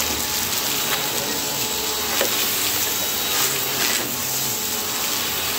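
Compact Bissell upright vacuum cleaner running as it is pushed over a shag rug, a steady whir with a few sharp crunching clicks as scattered debris is sucked up.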